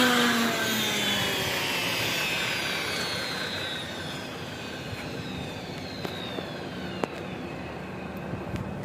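Electric cutting tool's motor spinning down after being switched off: its whine falls steadily in pitch and fades away, with a few faint clicks near the end.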